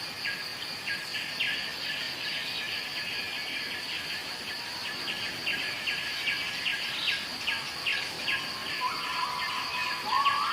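Outdoor nature ambience: a steady, high insect drone with many short, repeated bird chirps over it. About nine seconds in, a held, wavering call near 1 kHz joins.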